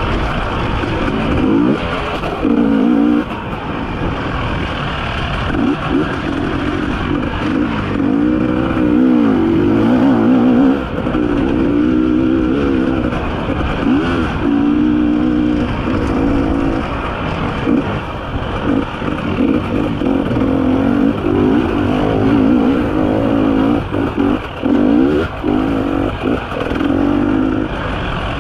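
300cc two-stroke enduro motorcycle engine heard from the rider's seat, its pitch rising and falling again and again as the throttle is opened and closed.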